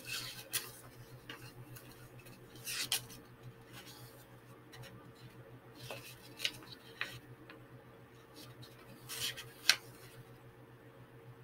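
Scattered light clicks, taps and rustles of small things being handled at a table, a few every couple of seconds, the sharpest tap near the end, over a steady low hum.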